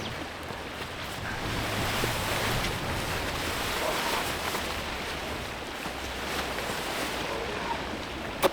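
Wind rushing steadily over the microphone, with a single sharp snap near the end.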